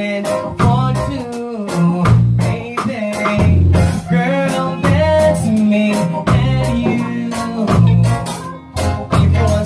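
Live reggae band playing: a man sings into a microphone over a bass line, keyboards and drums.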